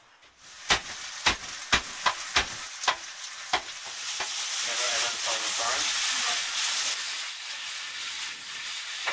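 About eight sharp knocks, roughly two a second, then from about four seconds in the loud sizzle of food frying in hot oil in a pan over a gas flame.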